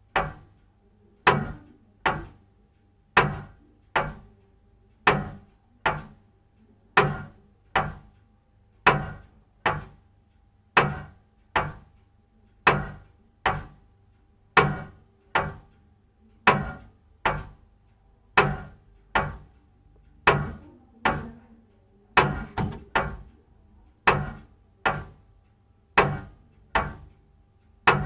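Big old clock ticking: a slow, steady tick-tock of about one tick a second, the ticks alternately a little further apart and a little closer together. About three-quarters of the way through, a few extra clicks come in quick succession.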